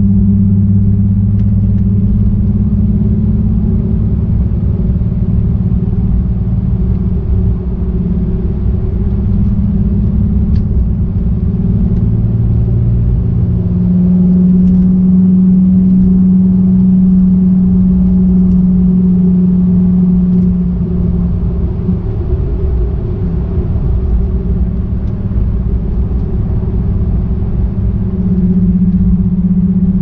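Nissan 370Z's 3.7-litre V6 running at fairly steady cruising revs, heard from inside the cabin along with low road rumble. The engine note swells a little for several seconds about halfway through and again near the end.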